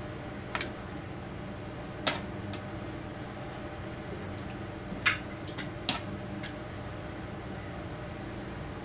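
Kitchen tongs clicking against a black enamel pan and a ceramic plate as meat rolls are lifted and set down: about seven sharp clicks at uneven intervals, the loudest about two seconds in and about five seconds in, over a steady low hum.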